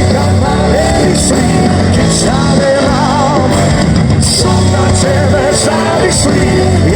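Pop-rock band playing live, with drums, bass and guitar and cymbal hits every second or so; a voice sings a wavering, held line in the middle.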